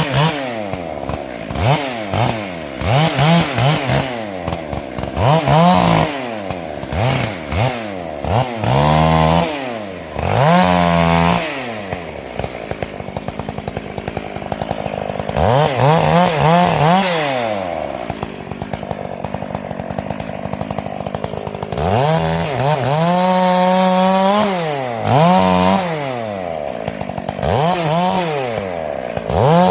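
Stihl MS 461 two-stroke chainsaw cutting oak with a full-skip chain, revving up and down over and over. Short throttle blips come first, then longer stretches held at high revs, the longest about two-thirds of the way through.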